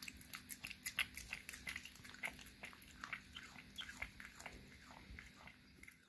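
A cat chewing a treat from a squeeze tube: a quick, irregular run of small crisp crunching clicks, several a second, thinning out over the last couple of seconds.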